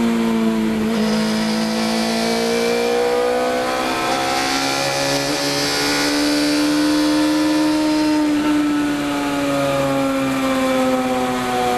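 Race car engine heard from inside the cockpit, held in fourth gear. Its pitch dips briefly about a second in, climbs slowly to a peak past the middle as the car speeds up, then falls as it slows near the end.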